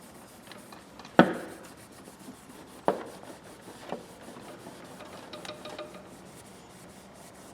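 Steel linesman's pliers being handled and wiped clean, with a few sharp metallic knocks: the loudest about a second in, with a short ring, and lighter ones a couple of seconds later, amid faint rubbing.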